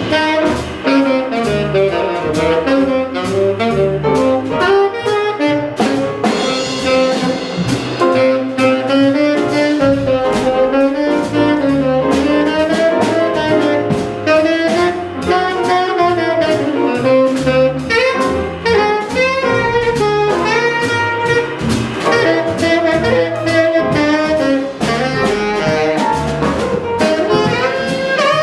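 Live jazz combo: a tenor saxophone plays a fast, unbroken solo line over piano, upright bass and a drum kit with regular cymbal strokes.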